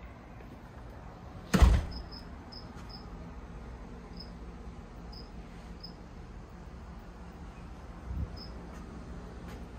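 Short, faint high chirps at uneven intervals over a low steady hum, with one loud thump about one and a half seconds in and a softer bump near the end.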